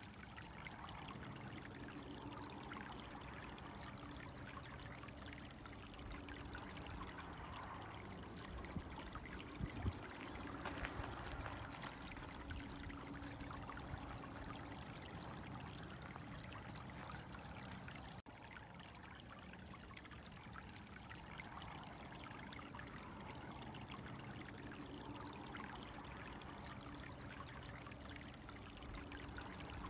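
Faint, steady trickle of flowing water, with a low hum of steady tones underneath.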